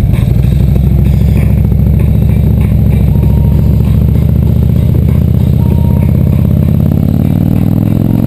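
Harley-Davidson touring motorcycle's V-twin engine running under way, heard from the rider's seat, its pitch rising steadily over the last couple of seconds as it accelerates.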